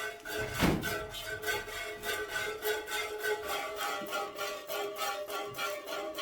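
Background instrumental music with string instruments playing quick, evenly repeated notes over held tones. A single thump sounds under the music about half a second in.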